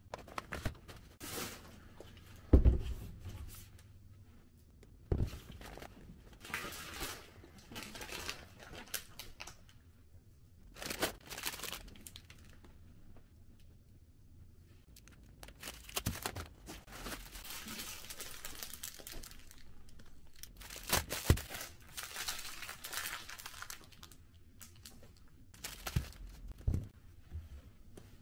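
Plastic grocery packaging crinkling and rustling as it is handled, with several knocks as packages are set down on a kitchen counter, the loudest a few seconds in.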